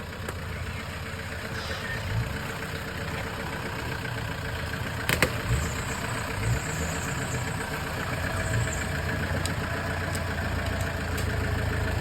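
An off-road 4x4's engine running steadily at a low idle, with one sharp knock about five seconds in and a few dull thumps.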